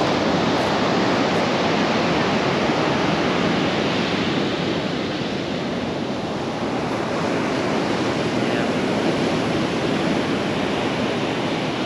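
Pacific Ocean surf breaking and washing onto the beach as a steady roar of waves, easing a little midway before building again.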